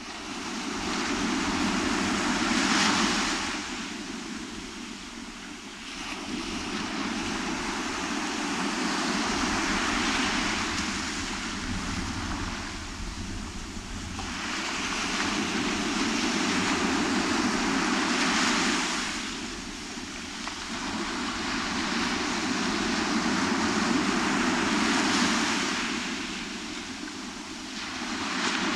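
Sea surf breaking on a beach, the wash swelling and fading in four long surges about seven seconds apart.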